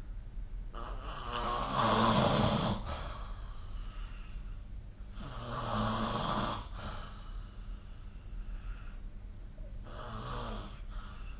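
A sleeping person snoring: three snores, about four seconds apart, each lasting one to two seconds, with the first the loudest. A steady low hum runs underneath.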